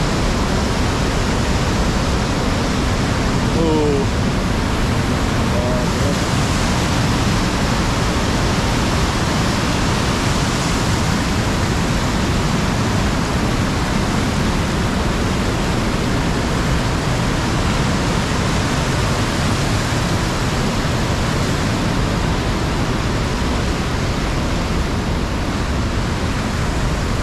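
Mountain stream rushing loudly in a steady, unbroken roar of water. The stream is running high, swollen later in the day.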